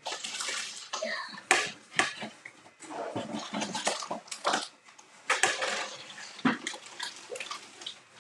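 Handling noise: rustling and shuffling of objects being moved about, with several sharp knocks along the way.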